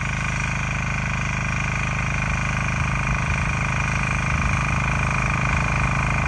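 A Bolat Atom tiller's 7 HP diesel engine running steadily, with an even, low rhythmic beat and a steady high whine.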